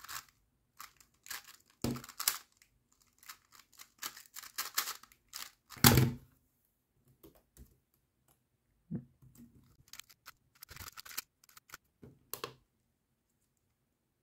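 Plastic 3x3 speedcube turned rapidly one-handed, a dense run of clicks and clacks that ends about six seconds in with one loud thump as the solve finishes and the timer is stopped. A few light taps on a laptop keyboard follow, then more bursts of cube turning.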